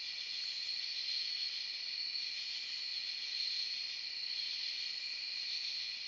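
Steady high-pitched chorus of night insects such as crickets, an unbroken drone with no rhythm changes.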